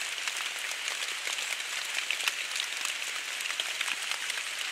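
Steady rain pattering on wet leaf litter and dead wood, a soft even hiss with many small irregular drip ticks.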